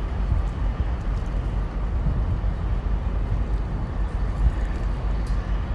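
Steady low outdoor rumble with no distinct event, made of low-pitched noise with a faint hiss above it.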